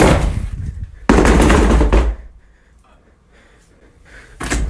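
Rapid heavy thumping, which the narrator calls footsteps, fading out within the first half second; about a second in comes a louder burst of pounding lasting about a second, then a quiet stretch before the thumping starts again near the end.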